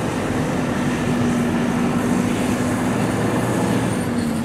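Street traffic at a city intersection, with a vehicle engine giving a steady low hum that drops slightly in pitch near the end.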